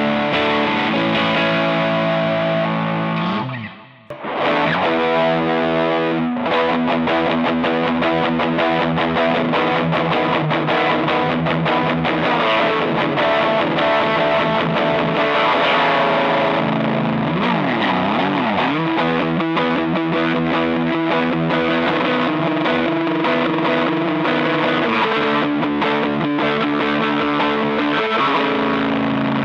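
Harley Benton TE-52 Telecaster-style electric guitar played with distortion, ringing held notes and chords. It stops briefly about four seconds in, then resumes, and the pitch wavers in a bend or vibrato around the middle.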